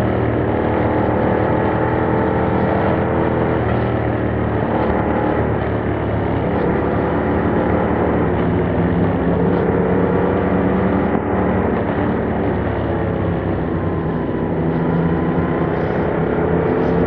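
2021 Yamaha MT-07's 689 cc parallel-twin engine running under way through its original exhaust, held at a fairly steady pace. Its pitch dips and climbs again a couple of times as the throttle changes.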